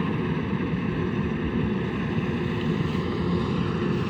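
Engine of a rice harvesting machine running steadily at constant speed.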